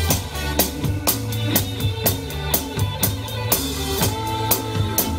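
Live jazz band music with the drum kit close by: cymbal and drum hits keep a steady beat about twice a second over sustained bass and chord notes.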